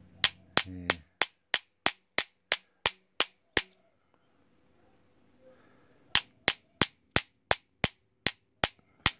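Small hammer tapping a brass Lockwood 245 padlock body in a steady run of sharp taps, about three a second, stopping for a couple of seconds midway and then starting again. The tapping is to make the outline of the hidden shackle retainer pin plug show in the brass.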